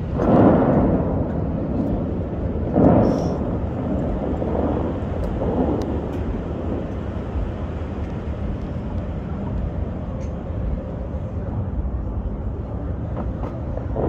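Steady rumble of wind and distant traffic, with two louder whooshing surges, one at the start and one about three seconds in.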